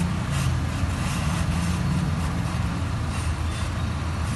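Oxy-acetylene gas welding torch burning on a scooter silencer: a steady low rumble from the flame, with faint crackles.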